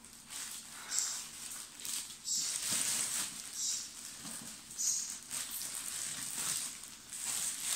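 Clear plastic bag around a monitor crinkling and rustling as hands pull and smooth it, in irregular bursts about once a second.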